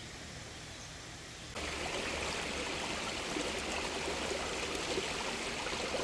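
Small rocky creek running and splashing over stones: a faint steady rush that jumps suddenly louder about a second and a half in and stays loud.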